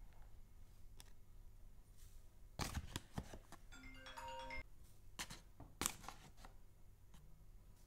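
Spoonfuls of flour tipped into a glass bowl of liquid batter: soft taps and scrapes of the spoon against the bowl. About four seconds in there is a short ringing chime of a few clear tones.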